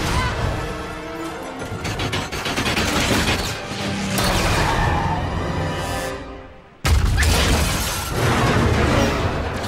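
Film music score mixed with train-crash sound effects: crashing metal, booms and shattering glass. About six seconds in the sound dies away almost to nothing, then a sudden loud crash of breaking glass cuts in.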